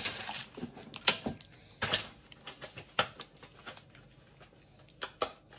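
Plastic packaging of a pack of mince being picked and pulled at by hand, making a string of irregular crinkles and clicks as it refuses to open.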